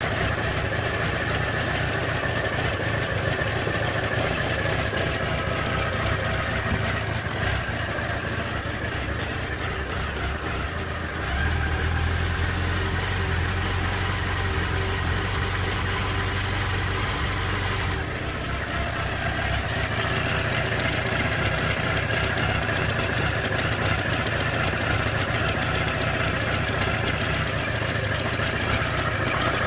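Suzuki Katana motorcycle's four-stroke engine running steadily with an abnormal noise whose cause is unknown: the tappets have been adjusted, the cam chain tensioner overhauled and the chain tension checked. The engine's low hum grows stronger about eleven seconds in, then eases again near eighteen seconds.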